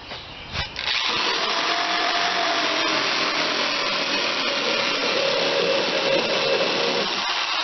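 Small power tool motor starts about a second in and runs steadily, its pitch wavering slightly under load as a rasp bit grinds down the plastic edge of a hatch hole in the kayak hull.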